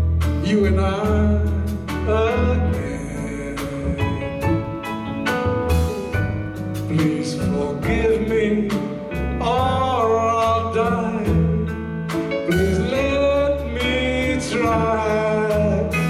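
Live jazz music: a man singing a slow standard, accompanied by drum kit and guitar.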